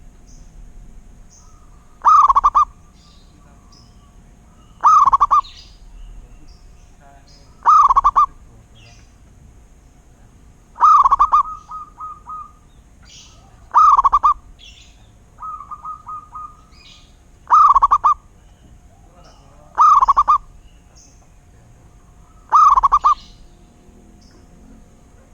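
Zebra dove cooing: a loud, short burst of coos about every three seconds, twice followed by a quicker string of softer notes. Faint chirps of other small birds and a thin steady tone run behind.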